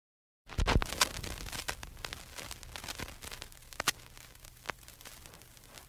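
A low thump about half a second in, then a hiss of static with scattered crackling clicks that slowly fades away.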